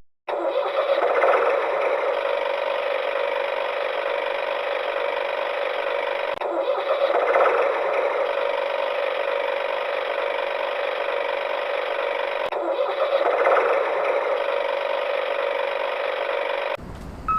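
Small electric motor of a DIY mini toy tractor running steadily, with brief breaks about six and twelve seconds in.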